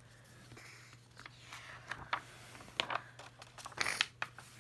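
Page of a picture book being turned by hand: soft paper rustling with a few light clicks and flaps, loudest near the end.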